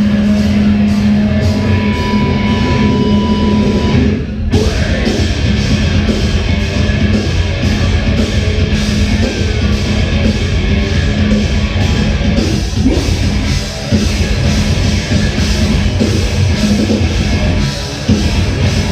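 Live rock band playing loud, with guitar and drum kit, and a brief drop in the sound about four seconds in.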